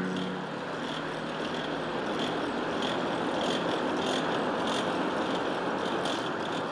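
Coal forge fire burning with a steady rushing noise of air through the fire, with faint irregular crackles.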